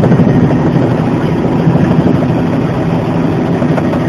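Bell 206 JetRanger helicopter in flight, heard from inside the cabin: the fast, steady beat of the rotor blades over the even drone of its turbine engine.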